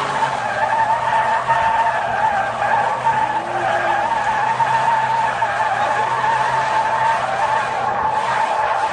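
A Niva's tyres squealing without a break as the car drifts, the screech wavering slightly in pitch, over the steady drone of its engine.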